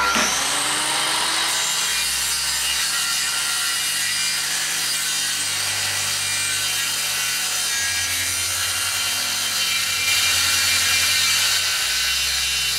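Hand-held corded circular saw running and ripping a long straight cut through a sheet of wood board, a loud steady sawing noise with no pause.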